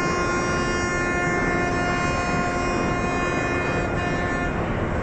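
A cruise ship's horn sounding one long, steady blast that cuts off about four and a half seconds in, over a steady low rumble.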